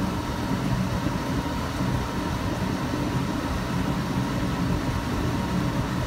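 Dometic 15,000 BTU rooftop air conditioner running steadily: an even rush of air over a steady low hum.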